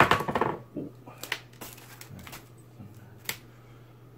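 Hands handling packaging and small parts on a desk: a rustle at the start, then a few sharp clicks and taps, over a steady low hum.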